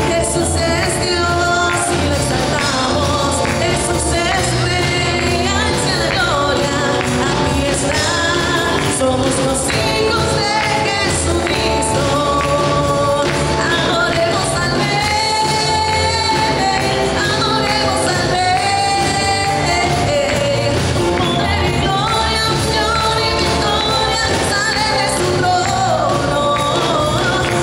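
Praise song: voices singing over band accompaniment with a sustained bass line.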